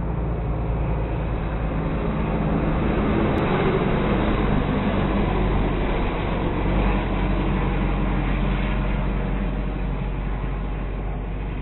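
Steady low engine rumble with a hiss of road or wind noise. It holds the same pitch throughout, with no rise or fall of revving and no sharp crash impact.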